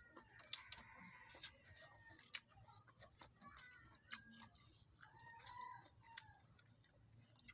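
Quiet eating sounds: chewing and small scattered clicks as rice is eaten by hand from a plate. Faint bird calls sound in the background near the start and again about five seconds in.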